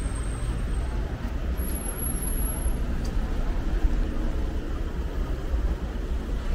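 Street traffic noise: car engines running and passing on a busy street, a steady low rumble.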